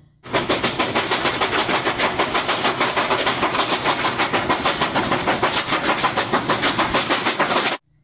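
Steam locomotive working hard, its exhaust chuffing in a rapid, even rhythm; the sound starts a moment in and cuts off abruptly near the end.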